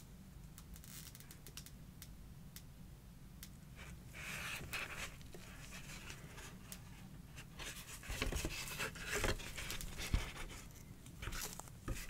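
Hands handling fragrance boxes and packaging close to the microphone: light scratching and rustling with scattered small clicks and taps. A few soft low knocks come from about eight seconds in, as if things are being set down.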